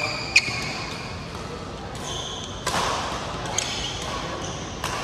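Badminton shoes squeaking on an indoor court floor several times, with two sharp racket-on-shuttlecock hits right at the start and a short scuffling burst about three seconds in.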